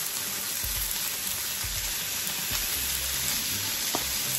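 Chicken breast pieces sizzling steadily on a ridged grill pan over a gas flame, just drizzled with sweet soy sauce.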